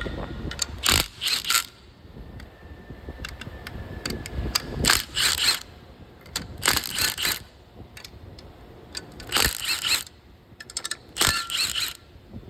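Ratchet wrench loosening cylinder-head bolts on an engine, clicking in several short bursts a second or two apart as the handle is swung back between pulls.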